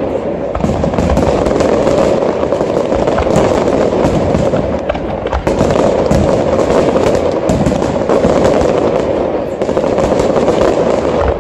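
Aerial fireworks display in full barrage: a dense, unbroken run of shell bursts and crackling stars, with many sharp reports following close on one another.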